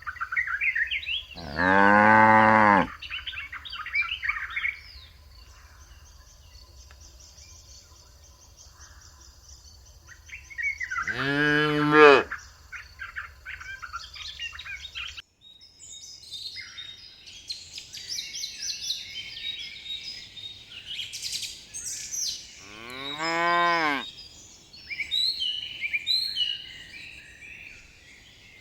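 Cows mooing three times, each a long low call about a second long, roughly ten seconds apart, with small birds chirping throughout.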